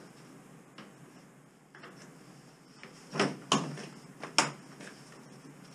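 Plastic front grille of a Toyota Hilux being worked loose from its clips by hand: light clicks, then three loud sharp clacks a little past the middle, with smaller rattles between.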